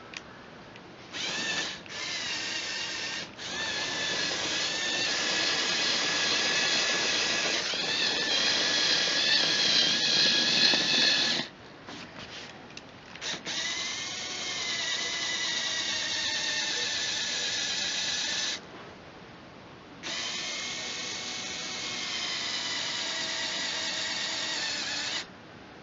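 Small electric motors and plastic gearing of a remote-controlled Lego Technic bulldozer whining in several runs, the longest about eight seconds, stopping and starting with a few short blips in between.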